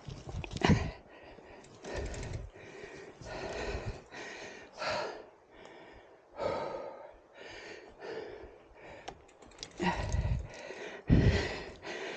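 A person breathing hard from exertion on a gruelling steep climb, with heavy breaths coming about once a second.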